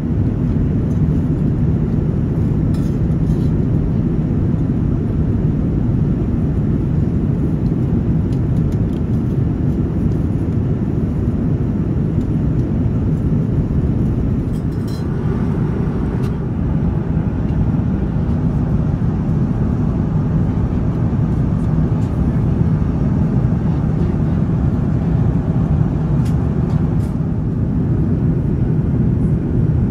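Steady cabin noise of an Airbus A350-900 airliner in flight, heard from an economy window seat: an even low rumble of engines and airflow. A few faint clicks come through about halfway.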